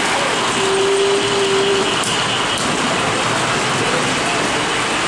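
Steady noisy din of a busy model-train show hall, with one held tone lasting about a second and a half near the start.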